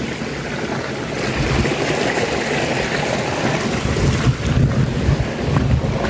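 Wind buffeting the microphone of a handheld camera during a walk: a steady rushing hiss with irregular low rumbles that grow stronger about a second in, and a few sharp steps or knocks near the end.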